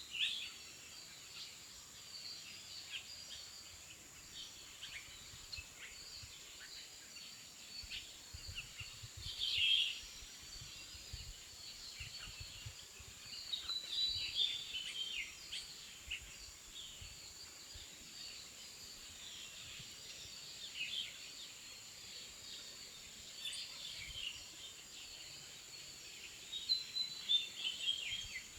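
Songbirds chirping and trilling on and off, with a steady high-pitched whine throughout.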